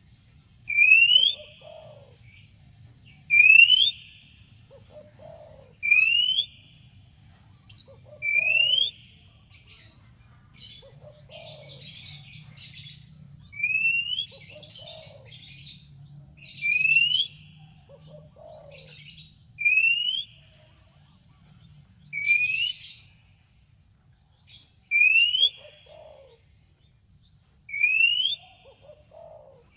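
Oriental magpie-robin (kacer) calling: the same phrase about ten times, each a low cooing note followed by a sharp rising whistle, with a stretch of scratchy chatter partway through.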